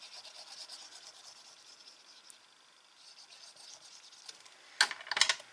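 Faint scratchy rubbing of glue being applied to a paper strip, fading out about halfway through, then a quick cluster of sharp taps and clicks near the end.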